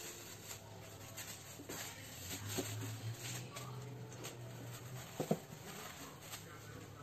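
A kitten batting and pushing a crumpled plastic bag across a hard floor: light crinkling and scattered small taps, with a single sharper knock about five seconds in.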